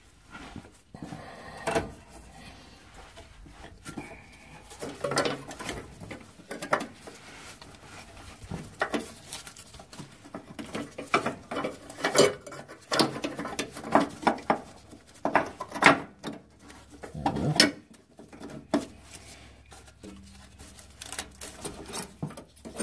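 Irregular clicks, knocks and scrapes of gloved hands working a fuel filter and its fuel-line fittings in the steel mounting bracket under a pickup truck.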